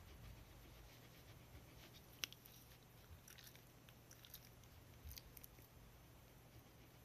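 Near silence over a low steady hum, broken by a few faint mouth clicks from a black-and-tan Shiba Inu, one sharper click about two seconds in and a small cluster about five seconds in.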